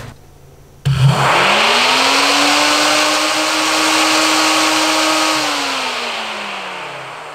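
SPAL 16-inch electric pusher fan on a car radiator, bench-run off a car battery: it switches on abruptly about a second in, spins up with a rising hum and rush of air, runs steadily, then winds down with a falling hum. It runs very smooth and not too loud, showing the fan motor is sound.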